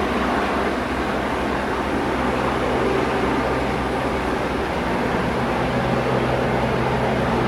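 A heavy engine running steadily: an even, loud mechanical noise over a low, steady hum.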